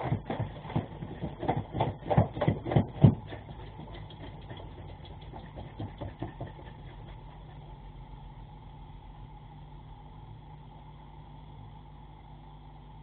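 A Dalmatian's legs jerking and knocking against the floor during a convulsive epileptic seizure, about three knocks a second and loudest around three seconds in. The knocks die away by about seven seconds, leaving a steady low hum.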